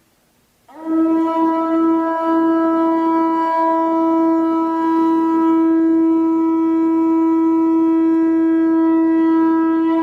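Conch shell trumpet blown in one long, steady note that begins a little under a second in and is held without a break.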